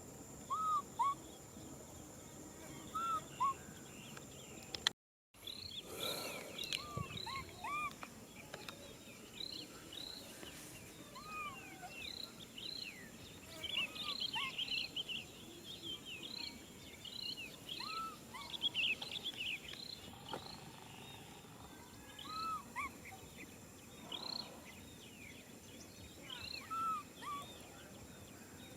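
Macaques calling: many short, arched, high-pitched coos and squeals from several animals. The calls overlap most densely in the middle stretch. Typical of infant macaques crying for contact.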